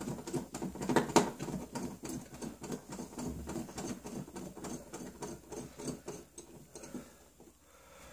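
A small screwdriver working a tiny screw out of a metal glass-shelf bracket: quick light clicks and scratches of metal on metal, dying away near the end.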